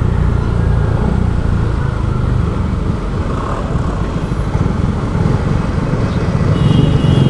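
Motor scooter being ridden through traffic: steady engine and road noise with wind rumbling on the microphone, and other vehicles passing close by.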